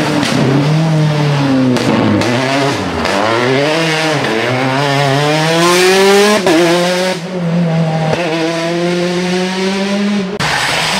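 Peugeot 208 rally car's engine at full racing load through a bend: revs drop as it brakes, then climb in several pulls through the gears, with a sharp fall in pitch at each shift. The sound cuts off abruptly near the end.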